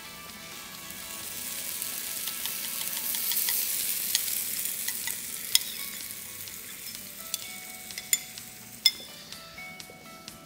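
Heavy cream sizzling as it is poured into a hot frying pan of sautéed button mushrooms and tomato over high heat. The hiss swells over the first few seconds and then eases, with a few sharp pops from spattering.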